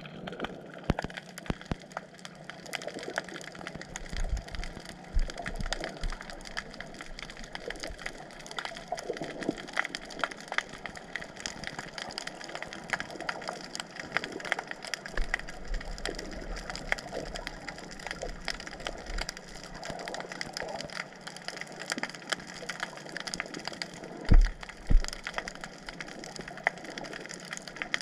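Dense underwater crackle of countless tiny clicks, like rain on a surface, heard through a submerged camera, with low surging rumbles now and then and two heavy low thumps close together about 24 seconds in.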